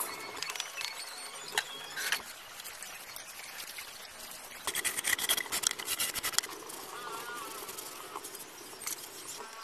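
Steel hand trowel scraping and tapping on wet cement render in a series of short strokes, loudest in a quick run of scrapes about halfway through.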